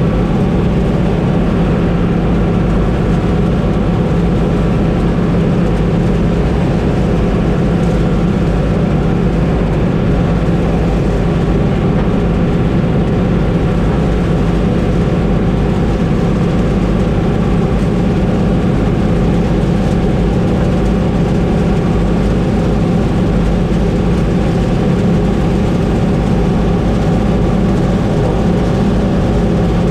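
Combine harvester engine and machinery running steadily at a constant pitch.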